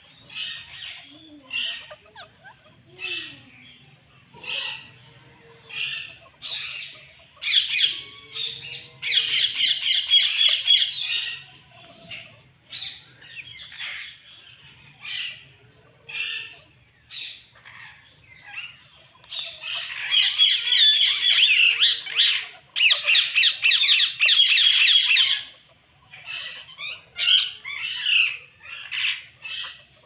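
Rose-ringed parakeets (Indian ringnecks) squawking: short sharp calls about once a second, broken twice by several seconds of rapid, continuous screeching, once about a quarter of the way in and again past the middle.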